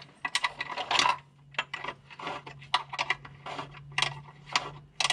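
Hand wrench clinking and ticking against a nut and bolt as the nut is run on and snugged: a string of short, irregular metallic clicks over a steady low hum.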